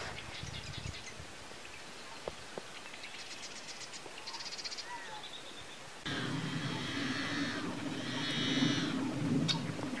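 Marsh birds calling: rapid pulsed trills and short chirps and whistles. About six seconds in, the sound jumps louder, with a denser chorus of calls over a low steady hum.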